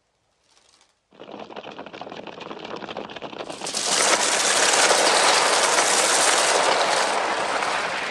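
Soundtrack of a crow attack on fleeing schoolchildren: a sudden dense rush of noise starts about a second in and swells much louder a couple of seconds later.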